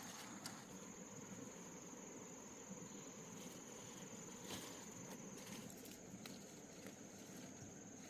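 Faint, steady high-pitched insect trill over a low background hiss, with a few light clicks scattered through.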